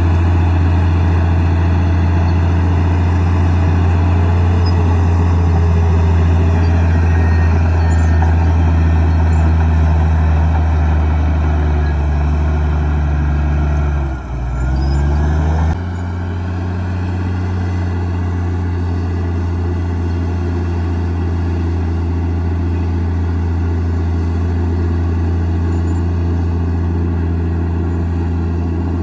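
Komatsu D58E bulldozer's diesel engine running steadily at working revs. About halfway through, the engine note dips in pitch and climbs back, then it switches abruptly to a slightly different steady drone.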